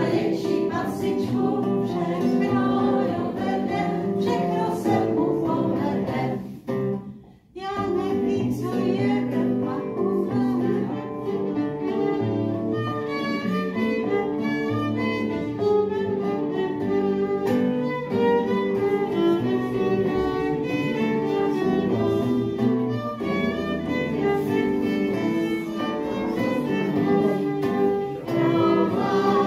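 Violin and acoustic guitar playing an old Prague popular song, with a short break about seven seconds in.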